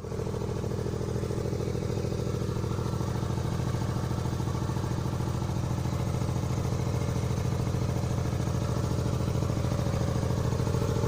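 Smart car engine running steadily with a fast, even pulsing hum, the strange noise its owner is puzzled by.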